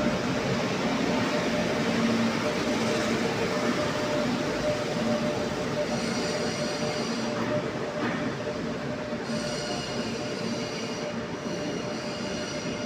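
Alstom-Bombardier Serie 5 (MR-15) metro train pulling away into the tunnel, running with a steady rumble and hum. From about halfway a high-pitched squeal sets in and comes and goes as it pulls away, the train growing a little fainter near the end.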